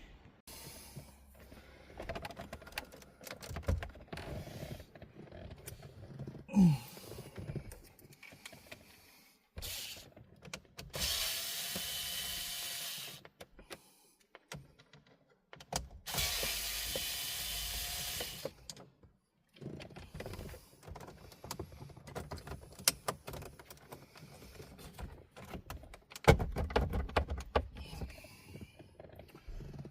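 Clicks and knocks of hand work on car dashboard trim and fittings, with two steady runs of a small electric motor lasting about three seconds each, partway through and about two-thirds of the way in.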